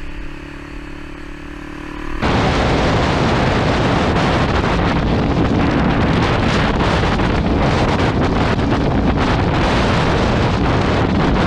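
A motorcycle engine running steadily at road speed. About two seconds in it cuts abruptly to loud, steady wind rush buffeting the microphone of a motorcycle at freeway speed, which covers the engine.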